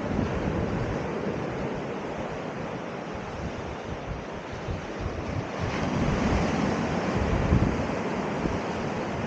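Sea surf washing onto the shore, with wind buffeting the microphone. The surf grows louder for a couple of seconds about six seconds in.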